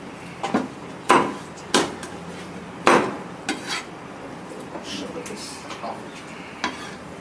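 Large kitchen knife chopping cooked chicken on a round wooden chopping board: about half a dozen sharp, irregular knocks, the loudest about three seconds in, thinning out in the second half.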